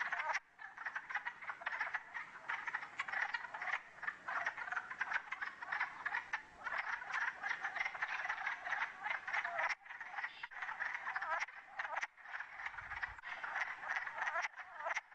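Chorus of wood frogs: many short, duck-like quacking calls overlapping in a dense, continuous stream, as if the frogs were talking at the same time, with a couple of brief lulls in the second half.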